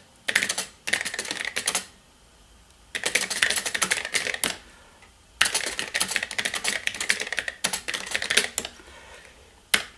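Typing on the keyboard of an Epson HX-20 portable computer: quick runs of key clicks in three spells with short pauses between them, then a single keystroke near the end.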